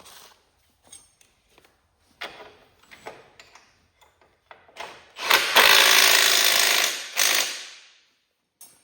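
Power tool spinning a lock nut down onto a transmission mounting bolt: one loud run of about two seconds, then a short second burst. Faint metal clicks from handling washers and nuts come before it.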